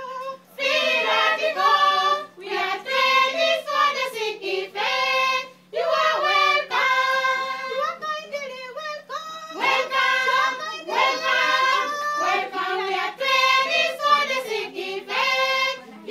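A group of young women singing together, unaccompanied: vocational students singing a welcome song in phrases, with a brief break about five and a half seconds in.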